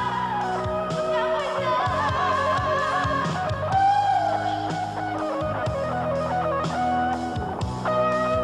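Instrumental break in a pop song: an electric guitar plays a lead line with bends and vibrato over bass and a steady drum-kit beat, with no vocals.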